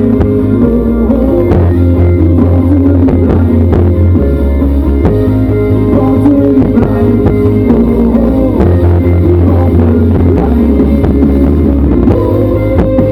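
Rock band playing an instrumental passage of a pop-rock song, with drum kit, guitar and bass. The bass holds long low notes that change about every two seconds.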